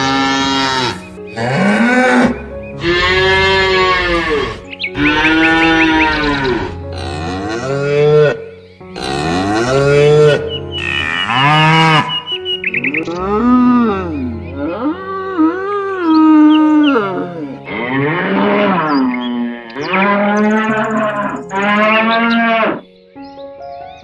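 Cattle mooing, about a dozen long calls one after another, each rising and then falling in pitch, over soft background music. The calls stop about a second before the end, leaving only the music.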